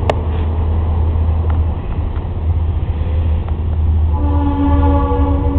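Freight locomotive air horn sounding one chord blast of a bit over a second, starting about four seconds in, over a steady low rumble.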